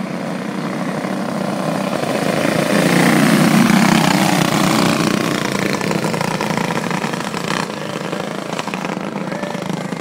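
A pack of cage go-karts running hot laps on a dirt oval, their small engines droning together. The sound swells as they pass close, loudest about 3 to 4 seconds in, then fades as they pull away down the track.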